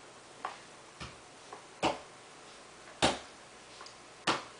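Irregular sharp knocks of hard objects, about six in all, the three loudest about two, three and four seconds in, as of toys being handled and set down.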